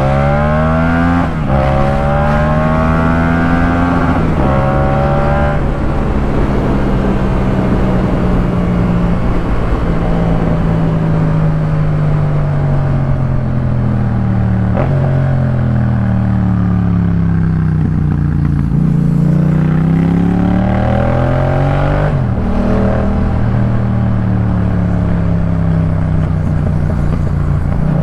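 Yamaha MT-07's parallel-twin engine through a Jeskap K4 full exhaust, ridden on the road. It pulls up through two quick gear changes in the first few seconds, then cruises with the pitch slowly falling, eases off about two-thirds of the way in, and climbs again into another shift.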